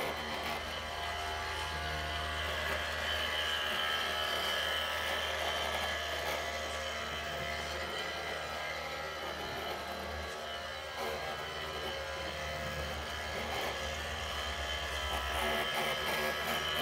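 Small electric motors of a radio-controlled model construction machine running, with a steady high whine over a low buzz. The buzz breaks off briefly about ten seconds in and again near the end.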